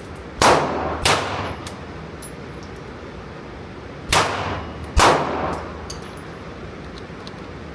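Four rifle shots, each with a ringing tail: two about half a second apart near the start, then two more about a second apart some three seconds later.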